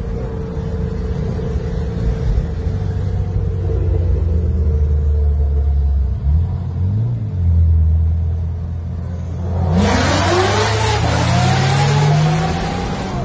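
Chevrolet Corvette C7's V8 running steadily at highway speed, then about ten seconds in a sudden burst of hard acceleration: the engine revs sweep up and down repeatedly over a loud rushing noise as the rear tyres spin and smoke, the car losing traction.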